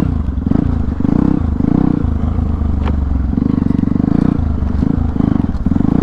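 Modified Hero Impulse's single-cylinder engine, running through an open aftermarket silencer with an open air filter. The throttle is blipped open and shut over and over as the bike is ridden off-road, so the engine note keeps swelling and dropping.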